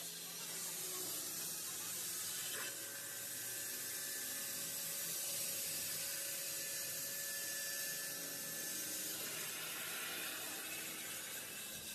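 CNC cutting torch hissing steadily as it cuts through steel sheet.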